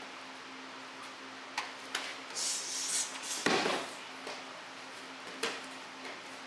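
Scattered sharp slaps and a swishing rustle, with one louder thud about three and a half seconds in: body movement on a training mat during karate techniques. A steady low hum runs underneath.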